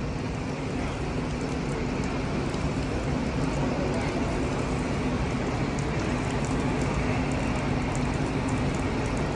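Diesel engine of a parked fire truck running steadily: a constant low hum under a steady hiss.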